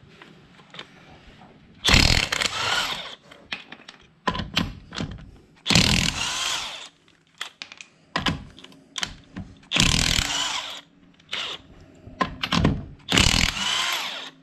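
Cordless DeWalt XR impact wrench hammering wheel nuts loose to take a car wheel off, in four bursts of about a second each with short blips of the trigger between them.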